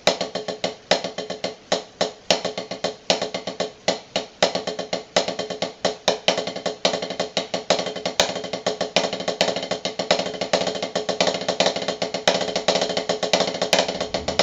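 Snare drum played with sticks in a rudimental pattern: two paradiddles followed by two strokes on one hand, alternating from side to side, in a dense, even stream of strokes that gets faster partway through.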